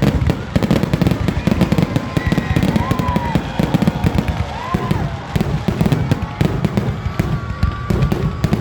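Fireworks show: a dense, continuous barrage of bangs and crackles, many shells bursting every second.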